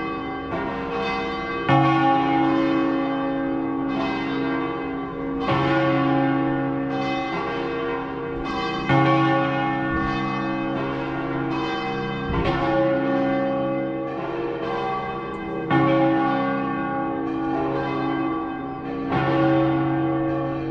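Several church bells in Saluzzo Cathedral's bell tower pealing together at close range, their strokes overlapping and ringing on. A heavier stroke comes about every three and a half seconds.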